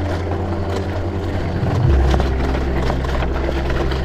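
Background music: a heavy held bass line that changes note about two seconds in, over a steady beat.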